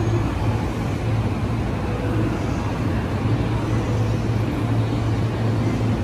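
Steady low hum of a stationary JR E531 series electric train idling at a platform, its onboard equipment running, the hum swelling and easing slightly.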